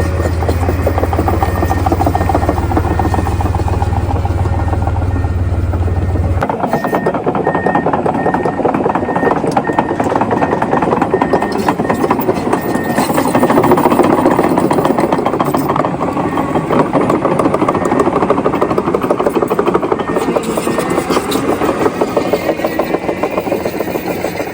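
Farm tractor's diesel engine running while the tractor is driven, its sound changing abruptly about six seconds in, with a repeating high beep through the first half.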